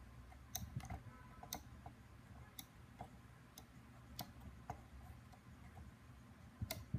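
Small slide switches on an FPGA development board being flicked one after another. They make a series of faint, irregularly spaced clicks, about a dozen in all, with a louder click near the end.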